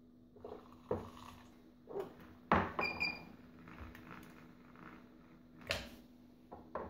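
Clicks and knocks from handling an Aeroccino 3 milk frother's stainless-steel jug and lid: the lid is taken off and the jug lifted from its base after frothing. The loudest knock, about two and a half seconds in, has a brief metallic ring. A low steady hum runs underneath.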